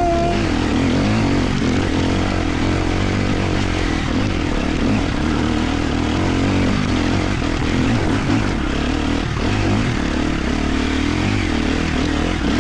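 Enduro dirt bike engine running at a steady, even throttle while being ridden, a constant loud drone with no big revs or stops.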